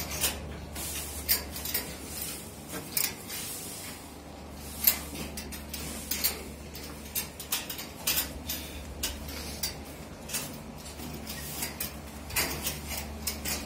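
Irregular metallic clinks and rattles of cows' tether chains as the tethered cows eat hay, over a steady low hum.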